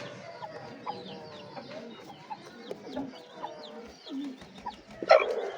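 Chickens clucking and chicks peeping, many short high falling chirps over lower clucks, with one brief louder sound about five seconds in.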